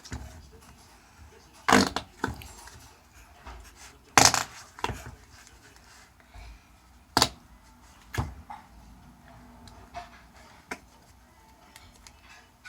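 Flarp noise putty squeezed in its tub, letting out a string of short, separate fart-like squelches, the loudest about four seconds in.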